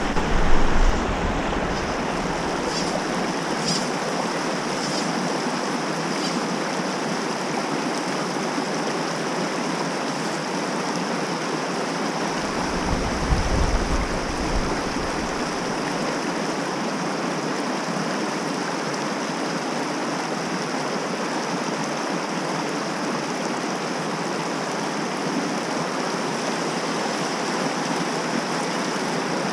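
A small mountain creek running over rocks and a drop-off, a steady rush of water. A brief low rumble comes about twelve seconds in.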